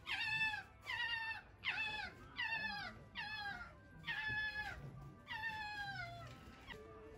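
A fox giving a run of high, whining calls, about seven in a row, each sliding down in pitch.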